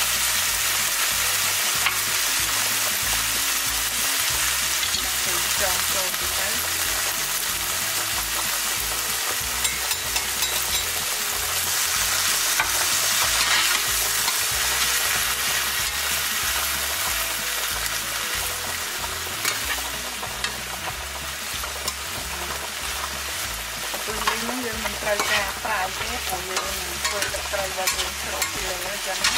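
Small shrimp sizzling in a nonstick frying pan as they are stirred and tossed with a spatula: a steady frying hiss with the spatula scraping and clicking against the pan, busier over the last few seconds.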